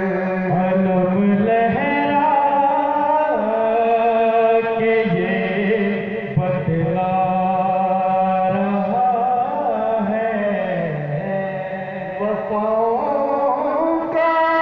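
Devotional music: men singing long, drawn-out lines of a religious chant-like melody over steady held notes from a harmonium. The singing eases off briefly around the middle and again about three-quarters of the way through before picking up.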